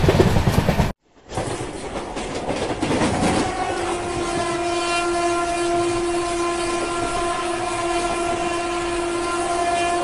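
Train horn sounding one long, steady note for about six seconds over the running noise of a moving Indian Railways train. The running noise is heard from an open coach door, and it cuts off sharply about a second in, then resumes.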